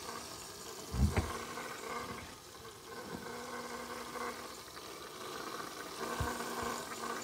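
Small electric motor of a toy tornado maker running with a steady hum, spinning the propeller that swirls the water in the bottle. A low thump about a second in and a smaller one about six seconds in.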